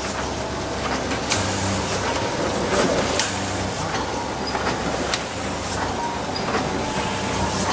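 Advantage Machinery ATS-43 automatic book sewing machine running: a steady mechanical hum with irregular sharp clicks and knocks.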